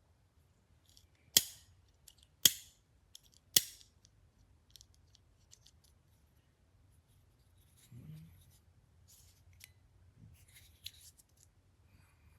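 Three sharp clicks about a second apart, then a few faint ticks and a soft rustle.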